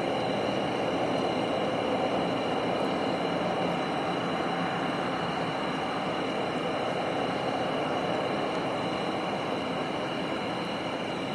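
Steady, unchanging whirring hum from an unidentified source, like distant machinery, with a few thin high steady tones above it.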